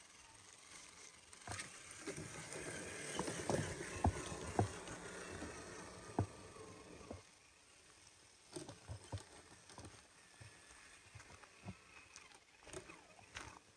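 Traxxas TRX-4 RC crawler's tyres crunching over dry leaves and twigs as it drives, with sharp snaps and knocks of sticks under the wheels. The crunching is loudest through the first half, with a few hard knocks in the middle, then thins to scattered clicks.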